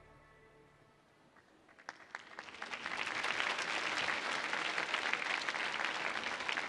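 Music fades out, then an audience's applause starts about two seconds in and swells into steady clapping.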